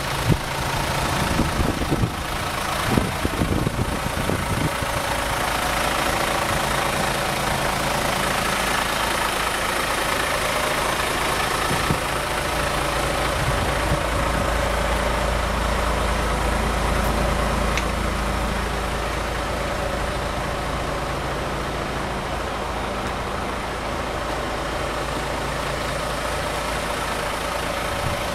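Iveco Stralis 500's 13-litre six-cylinder diesel idling steadily, with a few low bumps in the first few seconds.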